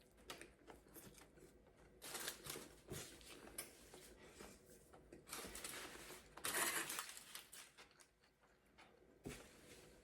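Faint, irregular eating noises as a short rib burrito is handled and bitten: soft rustles and mouth sounds in a few short bursts, the loudest a little past the middle, with a couple of small clicks.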